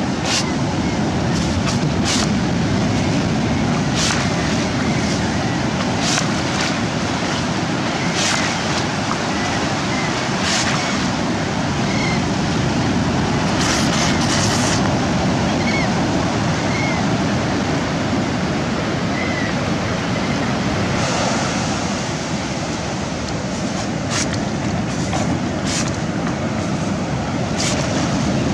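Ocean surf washing up the beach in a steady, dense rush, with wind on the microphone. Scattered brief sharp splashes cut through it.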